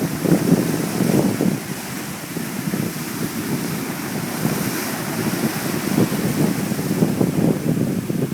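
Sea surf washing on the shore under a steady hiss, with wind buffeting the microphone in irregular low rumbling gusts.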